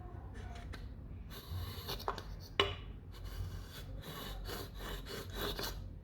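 Repeated scraping strokes on wood, about nine in five seconds, with one sharp click about halfway through.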